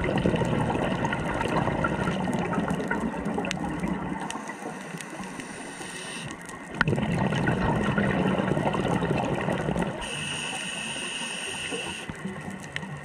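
Scuba regulator breathing underwater: long rushing bursts of exhaled bubbles alternate with shorter, steady inhalation hisses, about one breath every six seconds. Two exhalations each give way to an inhale, and a third exhalation begins near the end.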